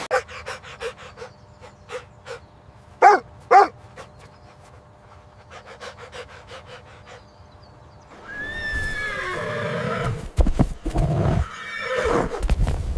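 An animal calling: two short loud calls about three seconds in over a run of light regular clicks, then a longer wavering call with heavy low thumps from about eight seconds on.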